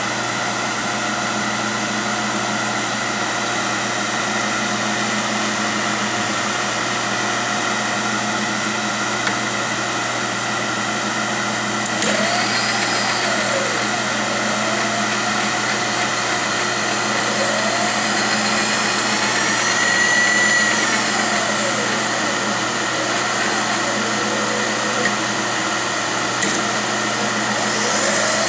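Enco X6320A milling machine running with a steady mechanical hum and whine. From about twelve seconds in, the table's power feed motor sweeps up and down in pitch again and again as its speed knob is turned.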